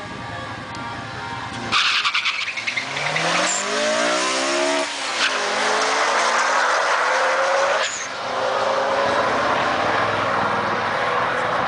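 Two cars launching from the drag-strip start line: a sudden loud take-off, then engines revving hard with the pitch climbing through each gear. It breaks at gear changes about three and six seconds after the launch.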